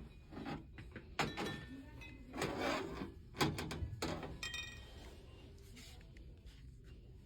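A few sharp knocks and clinks, some with a brief ringing tone, and a short rustle between them: items being picked up and set down on a store shelf.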